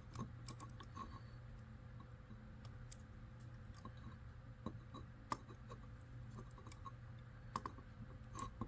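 Small plastic Lego pieces clicking faintly and irregularly as they are handled and pressed onto a tiny build, with a few sharper clicks about five and seven and a half seconds in.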